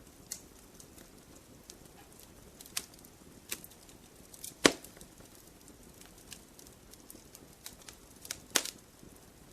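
Campfire crackling: irregular sharp pops and snaps over a soft hiss, with two louder pops, about halfway through and near the end.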